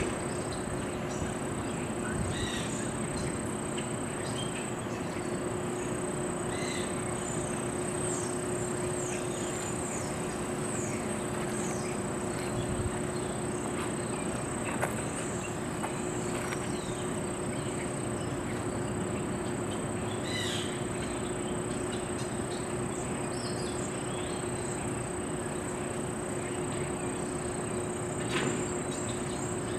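Outdoor ambience: a steady high-pitched insect drone, with scattered short high bird chirps and a steady low hum underneath.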